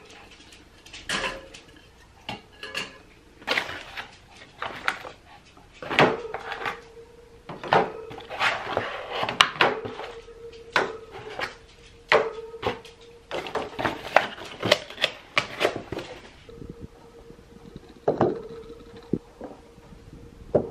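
Aluminium bottles and product jars being handled and set down on a wire shelf and into cardboard trays: a steady run of irregular clinks, knocks and taps. Behind it a faint steady hum comes in about six seconds in.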